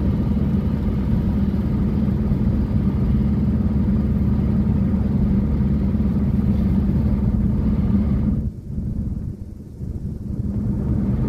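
Car cabin noise at highway speed: a steady low drone of engine and tyres on the road. It drops off sharply about three quarters of the way through and comes back briefly near the end.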